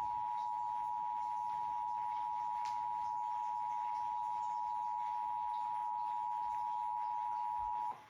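Emergency Alert System attention signal: the two-tone 853 Hz + 960 Hz alert held steady, then cutting off near the end, heralding a severe thunderstorm warning. It plays through a TV's speaker.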